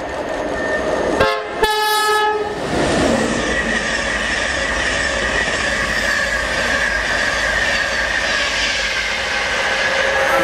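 InterCity 225 express train (Class 91 locomotive with Mark 4 coaches) passing through at speed. About a second in it gives a short two-note horn blast, the second note held longer. Then comes the steady rush of wheels on rails, with a high whine running through it.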